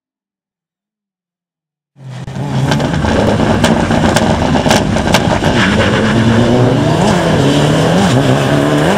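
Silence for about two seconds, then a Mitsubishi Lancer Evolution rally car's turbocharged four-cylinder engine revving loudly, its pitch wavering up and down in short blips, with several sharp cracks in between.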